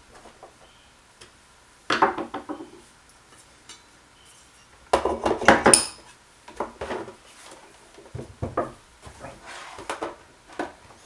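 Knocking, clattering and clicking of an HP 24ES monitor's plastic housing and stand as the stand is fitted onto the monitor's back and the monitor is stood upright. The sounds come in clusters, a burst about two seconds in, the loudest from about five to six seconds in, then smaller scattered knocks.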